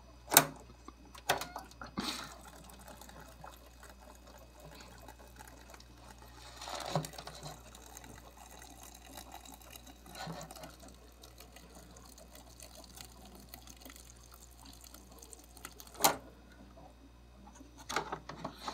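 Water being poured into an instant ramen cup, a brief pour near the middle, with a few sharp knocks and clatters of handling the cup and lid.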